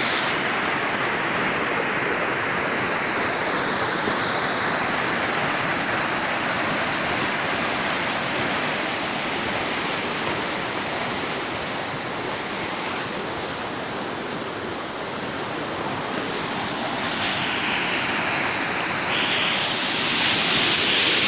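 Water pouring over a canal fall, a steady rushing sound that eases slightly midway and builds again near the end.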